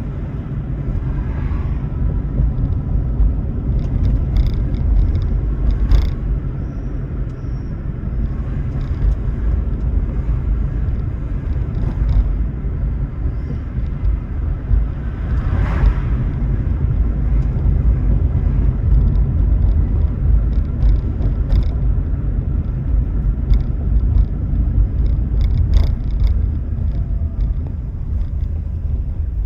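Toyota Prius driving along the road: a steady, loud low road and tyre rumble, with a few brief knocks, at about 6, 16 and 26 seconds in.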